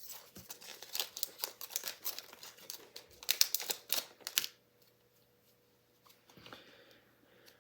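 Foil wrapper of a hockey card pack crinkling and tearing as it is pulled open, a rapid crackle that stops about four and a half seconds in, followed by only a faint rustle.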